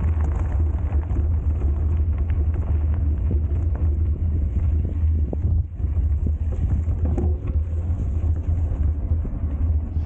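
Wind buffeting the microphone of a camera carried on a moving mountain bike: a steady low rumble, with frequent small knocks and rattles from the bike on rough ground.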